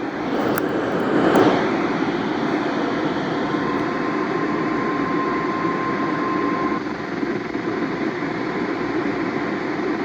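FM radio receiver static: a steady hiss of noise with no usable broadcast signal on the weather-radio frequency, with two brief clicks in the first second and a half. A faint steady tone sits under the hiss from about four to seven seconds in.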